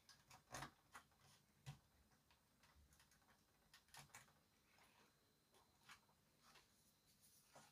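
Near silence, broken by a few faint, scattered clicks and ticks as a ribbon-cable connector's pins are worked into a circuit board by hand.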